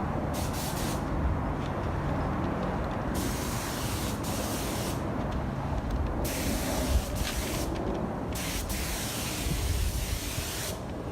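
Automotive paint spray gun spraying clear coat onto a car bumper in four hissing passes: a short one at the start, then three of about two seconds each with brief gaps. A steady low rumble runs underneath.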